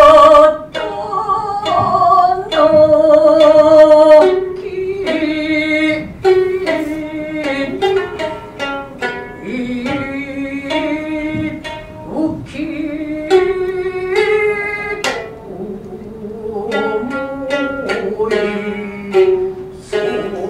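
Gidayu-bushi narrative chanting by a joruri chanter (tayu), with long, wavering held notes over a shamisen's sharp, plucked accompaniment.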